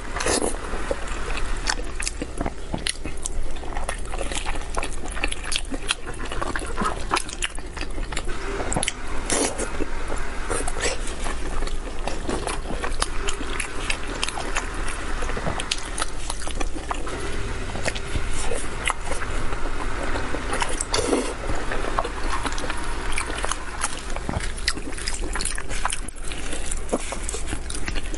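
Close-miked eating sounds: wet chewing and lip-smacking on spicy braised pork knuckle, with squelching, sticky crackles as plastic-gloved hands pull the sauce-covered meat and skin apart.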